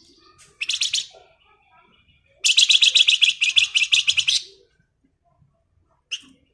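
Flamboyan songbird giving its rapid rattling 'ngebren' song: a short rattle about half a second in, a longer rattle of about ten notes a second lasting about two seconds, then one sharp single note near the end.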